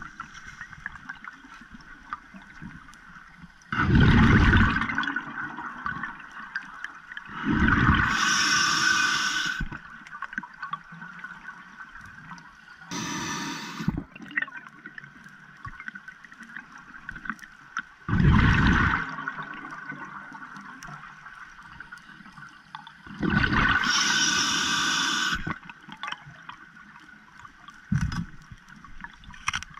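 Scuba diver breathing through a regulator underwater: about six rushing, bubbling exhalations and hissing inhalations, one every four or five seconds, with a faint steady hiss between them.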